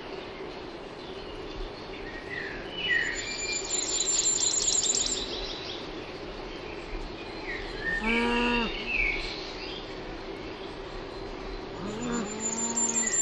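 Cattle mooing: a short moo about eight seconds in and another starting near the end, with birds chirping and a fast high trill repeating in the background.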